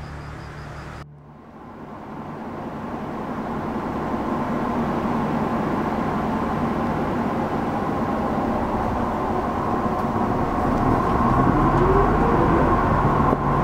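Inside a moving city bus: engine and road noise building steadily, with a rising engine note near the end as the bus pulls away. A brief tail of music fades out in the first second.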